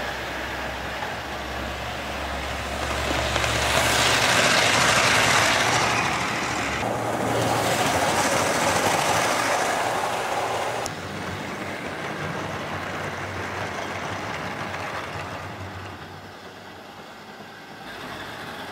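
Mainline OO gauge Class 42 Warship model locomotive running on model railway track: a steady motor hum with wheel-on-rail rumble. It grows louder about three seconds in as it nears the microphone and drops off abruptly about eleven seconds in. The loco is running smoothly after a good running-in.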